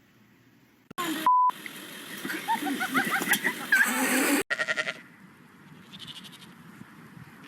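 A short beep, then a loud stretch of busy noise with many short chirping calls that cuts off abruptly, followed by a short, rapidly quavering goat bleat.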